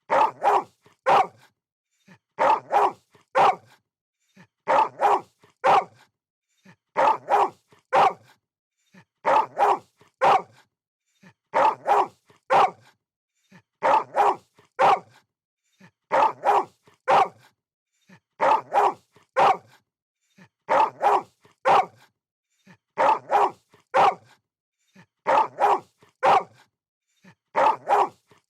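A dog barking in quick bursts of three or four barks, the bursts repeating at an even pace about every two seconds with short silences between.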